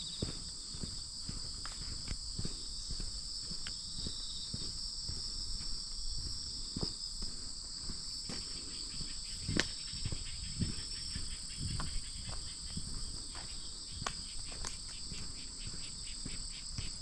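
Insects singing steadily in two high, continuous trills, with rapid ticking pulses from another insect about halfway and again near the end. Under them come the walker's footsteps and a sharp click a little before the middle.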